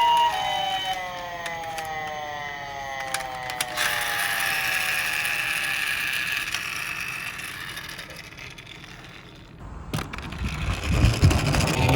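A two-tone hi-lo siren, the ambulance-style alternating call, stops about a second in. Falling siren tones then trail away over the next several seconds, with a click near four seconds and a steady hiss. Near the end a low rumble starts.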